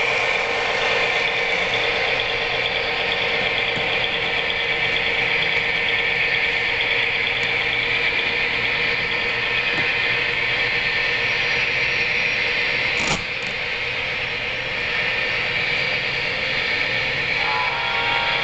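Model trains rolling past on the layout track: a steady whir of wheels and locomotive motors on the rails. A single short click about thirteen seconds in, after which it runs a little quieter.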